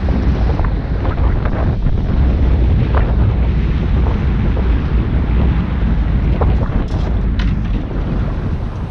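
Strong wind buffeting the microphone in a steady low rumble, with sea water washing against the rocks. There are a couple of light clicks about seven seconds in.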